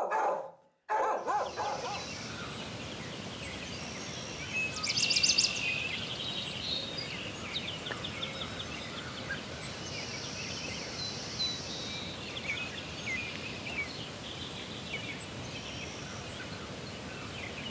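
Outdoor countryside ambience: a steady background hiss with small birds singing and chirping throughout. A fast, rapid trill about five seconds in is the loudest call.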